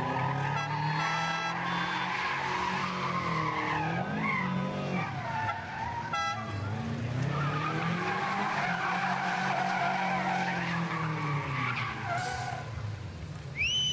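A car engine revving up and down repeatedly while its tyres squeal in a skid, the wheels spinning. About a second before the end, a high, wavering horn tone starts.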